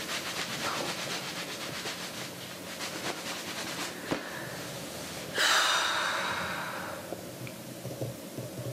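A towel rubbing quickly over wet hair, a rapid rhythmic rustle, then about five seconds in a loud long exhale that fades away.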